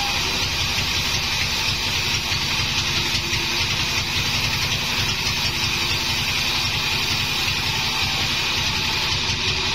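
Band saw mill running steadily, its blade cutting through a thick timber slab, a constant low machine drone with a hiss over it.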